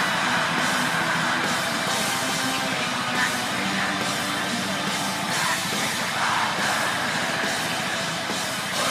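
Heavy metal band recording: distorted electric guitars and drum kit playing continuously at a steady, loud level.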